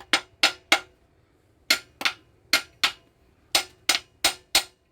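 Hammer striking metal: about a dozen sharp, ringing blows in short runs of two to four.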